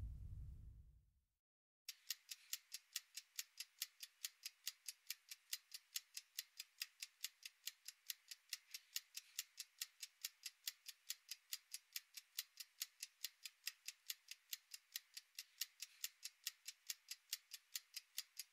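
Clock-like ticking, used as a quiz countdown timer, at about three to four even ticks a second. It starts about two seconds in.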